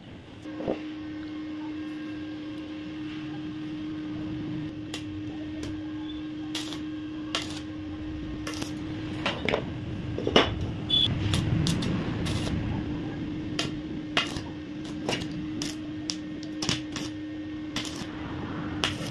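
Pieces of 1-inch square steel pipe clinking and knocking against each other as they are handled and fitted together, in many short sharp strikes over a steady electrical hum. Near the end an arc welder crackles as the frame's corners are welded.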